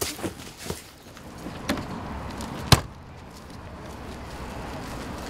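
A few short, sharp knocks and clicks, the loudest about three seconds in, over a steady outdoor background noise.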